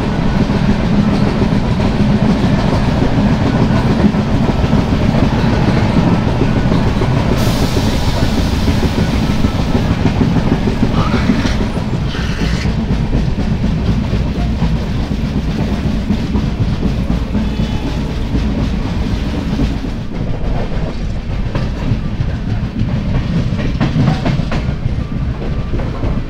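Mangala Lakshadweep Express passenger train running at speed, about 65 to 70 km/h: a steady rumble with the clickety-clack of the coach wheels over the rails. From about a quarter of the way in to nearly halfway, a rush of hissing noise rises over it for several seconds.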